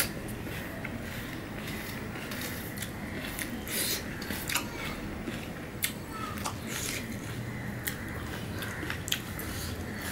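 Close-up eating sounds of pomelo pulp: fingers mixing the juicy segments on a steel plate and the mouth chewing them, heard as irregular wet clicks and smacks.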